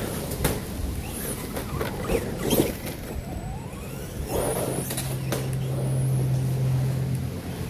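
Brushless electric motor of an ECX Ruckus RC monster truck (Dynamite Tazer combo) whining up and down in pitch as the truck accelerates over the grass and passes close by about four seconds in. A steady low hum sets in about four seconds in.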